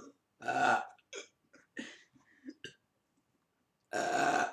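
Person burping on purpose. One loud burp comes about half a second in, then a few short throaty sounds, and another long burp starts near the end.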